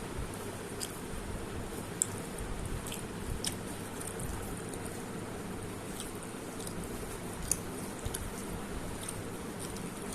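A person chewing and eating food, with scattered wet mouth clicks and smacks, the sharpest about two seconds in and near the middle, over a steady low hum.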